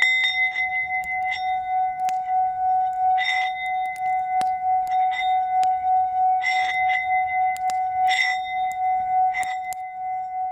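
Singing bowl struck and then kept ringing: one steady, clear tone with higher overtones that swells and ebbs. Brief scraping noises recur every second or two.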